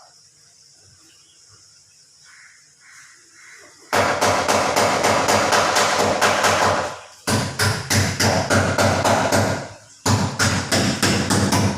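Rapid repeated impacts in three long bursts, starting about four seconds in, from tool work on the car during the tie rod end change.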